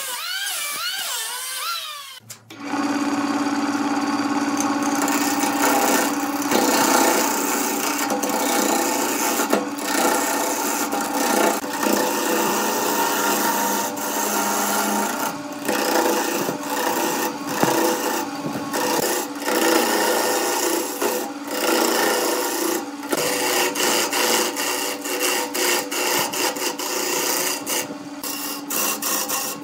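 For the first two seconds a handheld electric planer cuts the spinning blank with a rising and falling whine. Then a wood lathe runs with a steady motor hum while a turning chisel scrapes and cuts the rotating segmented wood blank, a continuous rough scraping with many short clicks.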